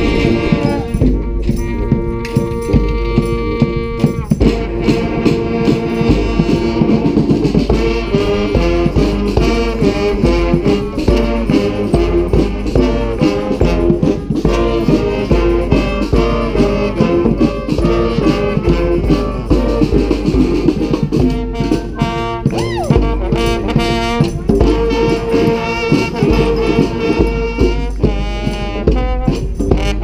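Brass street band playing: sousaphones, trombones, trumpets and saxophones with held notes and riffs over snare drum and hand drum keeping a steady beat.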